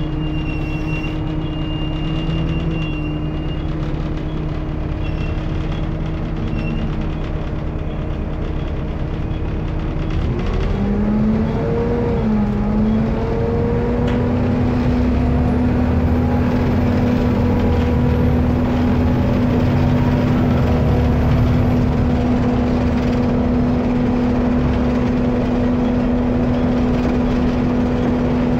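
Rear-mounted diesel engine of an Alexander ALX400 double-decker bus, heard from the back seats of the lower deck, running with a steady drone. About ten seconds in the revs rise over a few seconds, and the engine settles into a louder, higher-pitched steady pull under load.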